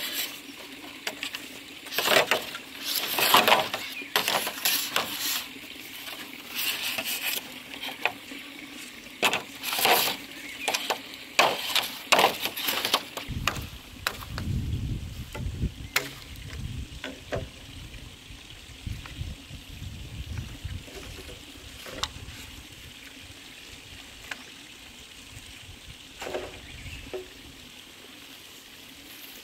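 Machete blade chopping and trimming green bamboo poles: a quick, irregular run of sharp strikes for the first dozen seconds, then only a few scattered knocks. A low steady rumble joins about halfway through.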